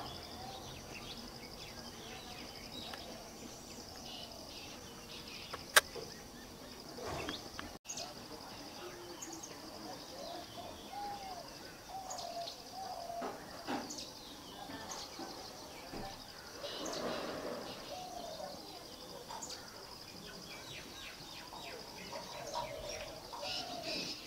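White-rumped munias giving short, high chirping calls at intervals over a steady high buzz, with one sharp click about six seconds in.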